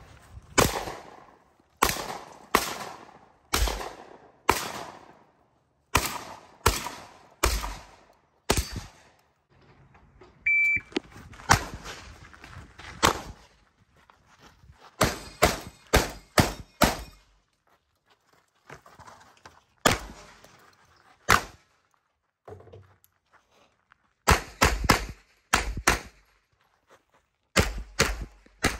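Strings of gunshots from competition shooting, roughly one or two shots a second, with pauses between strings. A shot timer gives a short beep about ten seconds in, and a new string of shots follows it. Near the end the shots come from a pistol.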